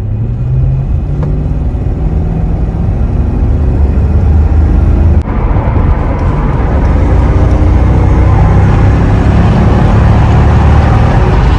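Mercedes E55 AMG W210's 5.4-litre V8 accelerating hard at full throttle, the engine note rising in pitch. A brief break comes about five seconds in, an upshift, then the engine pulls hard again.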